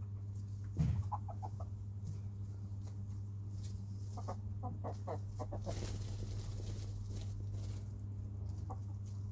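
Chickens clucking in short runs of quick clucks, about a second in and again from about four to five and a half seconds, with a thump near the start and a brief rustle around six seconds, over a steady low hum.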